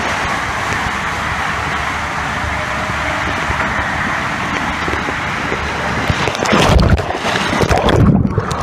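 Water rushing around a rider sliding through an enclosed water slide, a steady wash of noise. About six and a half seconds in it grows louder and rougher as the rider splashes down, and near the end it turns muffled, the high end cut off as the phone goes under water.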